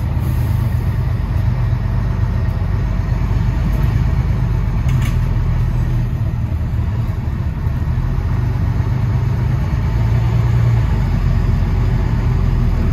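Bus engine running with a steady low hum.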